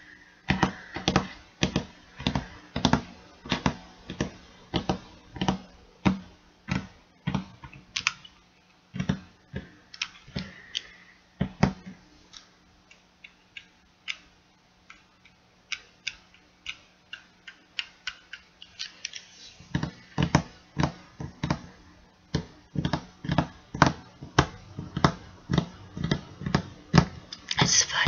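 Long-neck utility lighter clicking over and over: a run of sharp clicks, about two a second, that thins out in the middle and picks up again near the end.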